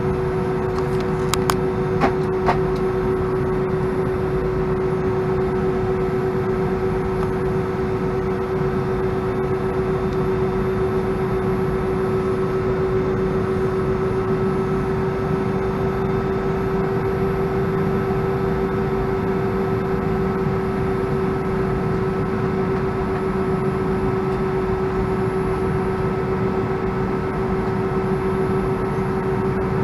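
Steady cabin noise inside an Airbus A319 taxiing: engine and air-conditioning running with a constant hum. A few sharp clicks about one to two seconds in.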